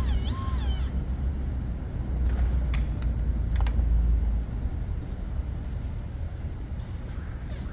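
Low engine-like rumble, as of a vehicle running or passing traffic, that eases off a little after about four seconds, with a few sharp clicks near the middle.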